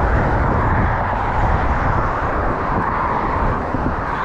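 Steady road traffic noise from vehicles passing over the bridge: a continuous even wash of sound with no distinct events.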